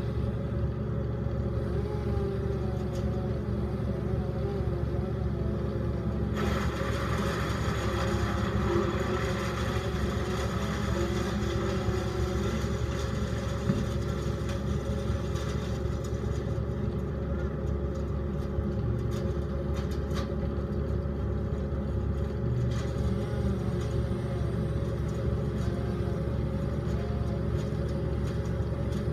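Truck engine running steadily at idle to power a bucket lift's boom. Between about 6 and 16 seconds in, the noise of a passing pickup is added.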